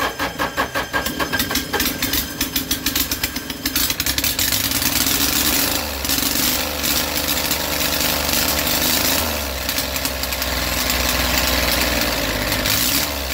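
Kubota D722 three-cylinder diesel engine just started, running rough and uneven for the first few seconds, then settling into a steady run; its speed shifts about six seconds in. The injection pump and fuel rack have just been rebuilt to cure a runaway, and the engine runs under control.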